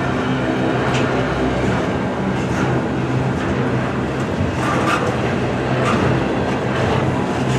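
Norfolk Southern freight train rolling past: a steady loud rumble of cars on the rails, with scattered sharp clicks from the wheels.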